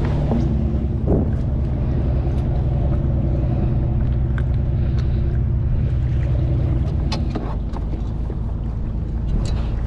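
Wind buffeting the microphone over choppy water: a steady low rumble with a low hum under it that eases about seven seconds in, and scattered light clicks.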